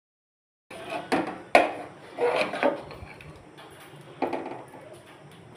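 Metal spatula stirring thick cooked chana dal in an aluminium pressure cooker, knocking and scraping against the pot a handful of times after a brief silence at the start.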